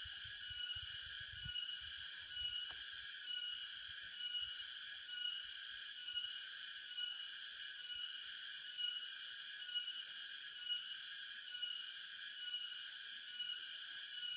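A dense, high-pitched insect chorus in tropical forest, pulsing evenly a little faster than once a second. A few soft low thumps come in the first second or so.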